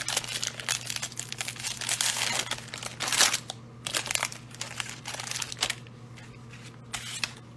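Plastic Donruss fat-pack wrapper crinkling and tearing as gloved hands rip it open and slide the cards out. The crackle is densest in the first three seconds or so, then thins to scattered rustles.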